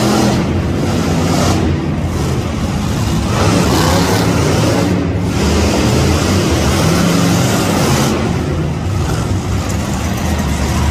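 Monster truck engine running loud and revving hard, its pitch rising and falling, with the roar echoing around an indoor arena.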